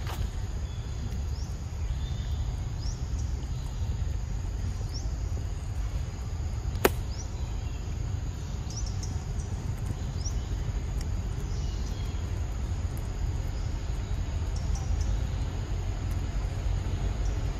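Outdoor forest ambience: a steady low rumble, with faint short rising chirps every second or two and a single sharp click about seven seconds in.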